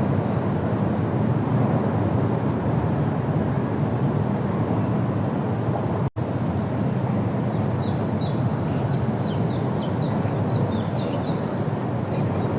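Steady low rushing background noise, cut by a sudden split-second dropout about six seconds in. From about eight seconds a small songbird sings a quick series of high, downward-sweeping chirps for roughly four seconds.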